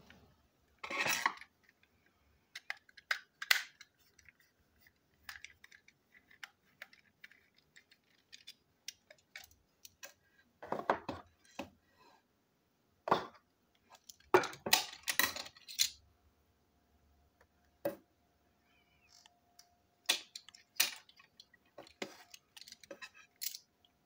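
Small plastic and metal parts of a model railway coach being handled and taken apart by hand on a table: irregular clicks, taps and short clatters, busiest around the middle.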